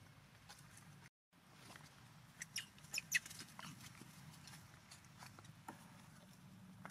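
Faint short squeaks from a baby monkey, a quick cluster of them about two and a half to three seconds in and a few more later, over a low steady hum.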